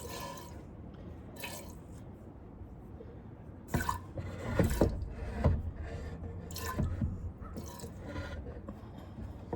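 Goat's milk squirting into a pail as a Nubian doe is hand-milked: about eight short squirts, unevenly spaced and slow.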